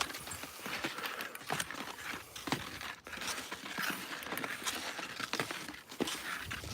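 Irregular crunching and scraping of skis and footsteps moving over snow: a steady scatter of short sharp crackles.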